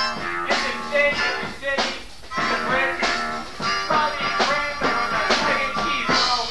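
Live rock band music with a steady beat.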